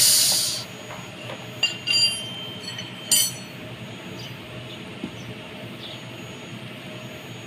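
A short rustling hiss at the start, then a few light metallic clinks with a brief ring, about two and three seconds in, as a piston and the cast engine block of a tractor diesel are handled. A faint steady hum runs underneath.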